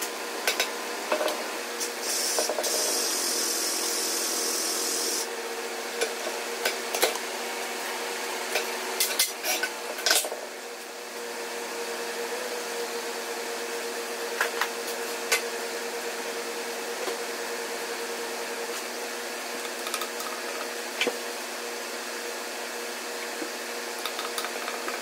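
Metal puller parts and tools clinking and scraping as they are handled and set down on a steel bench, with a rag rubbing inside the bore, over a steady shop hum. Hissing comes twice in the first five seconds.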